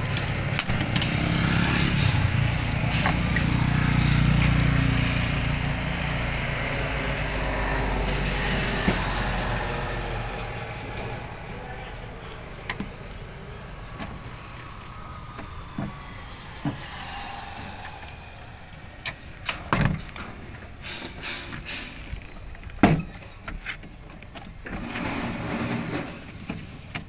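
A low vehicle engine rumble for the first ten seconds or so, fading away. After it come scattered sharp clicks and knocks from a car door's plastic interior handle and trim panel being handled and worked, with the loudest clicks about twenty and twenty-three seconds in.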